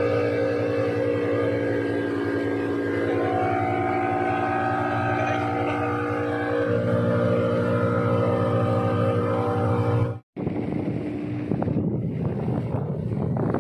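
Fishing boat's engine running steadily, its note shifting slightly about two-thirds of the way through. After a sudden cut near the end, wind on the microphone and a rougher, noisier rush take over.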